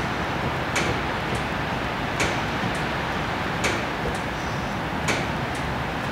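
Steady, evenly paced mechanical clicking: a sharp click about every second and a half, each followed by a fainter click, over a steady hiss.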